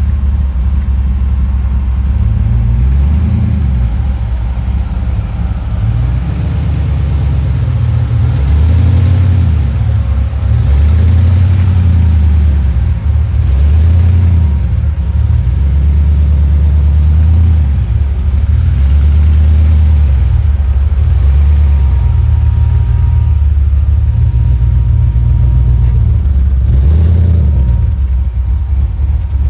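Jeep Comanche's engine running at low revs off-road, its pitch rising and falling again every second or two as the throttle comes on and off.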